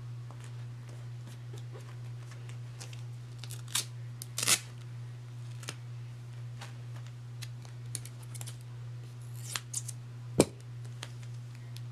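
Scissors snipping through duct tape: a scattering of short snips and clicks, with a sharp snap about ten seconds in.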